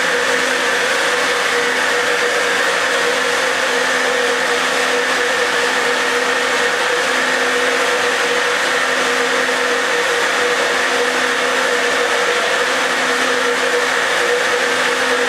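SuperFlow flowbench motors running steadily, moving air through the exhaust port of a ProComp 190cc cylinder head during a flow test: a loud, even whir with a constant hum.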